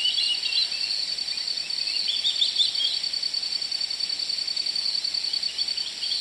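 Forest ambience: a steady high-pitched insect trill over a soft hiss, with bursts of short bird chirps in the first second, again about two to three seconds in, and faintly near the end.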